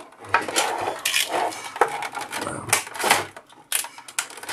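Stiff clear plastic clamshell packaging crackling and snapping as it is bent, pried and cut open with a utility knife, in a run of irregular crackles and sharp snaps.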